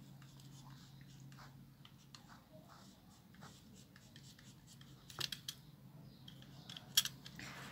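Snap-off utility knife blade sawing through the fleshy stem of a fairy castle cactus (Acanthocereus tetragonus): faint scratching and rubbing strokes, with a few sharp clicks about five and seven seconds in.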